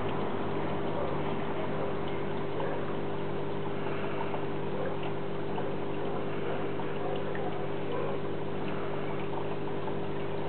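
Aquarium filter pump running: a steady hum under a constant wash of moving, trickling water.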